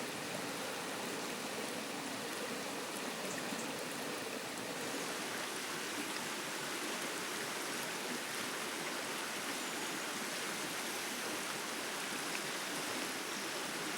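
River water running steadily, an even rushing wash of flowing water.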